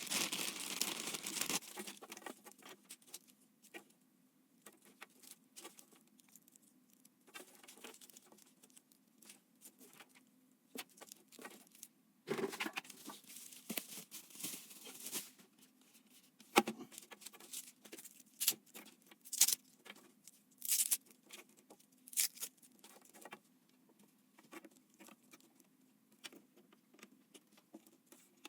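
Hands handling computer parts and packaging: a burst of crinkling and rustling at the start, then scattered small clicks, taps and light knocks of plastic and metal pieces being picked up and fitted.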